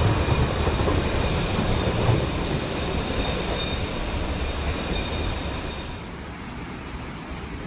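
Cargo train of the Alishan Forest Railway approaching out of sight: a low diesel rumble with high, thin wheel squeal from the curving narrow-gauge track. About six seconds in it drops away to a softer, steady hiss of running water.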